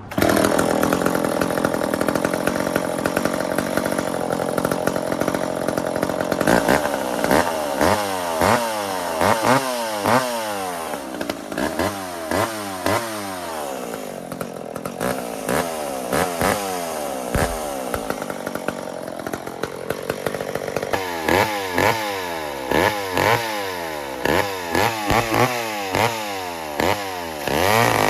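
McCulloch 10-10 two-stroke chainsaw running loud. It holds a steady high speed for about six seconds, then its engine speed rises and falls over and over, about once a second.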